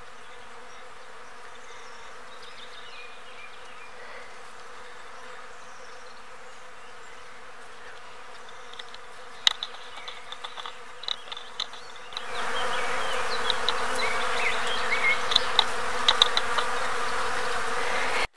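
Bees buzzing in a flowering bay laurel: a steady drone of many bees that swells clearly louder about twelve seconds in, with a few short ticks just before.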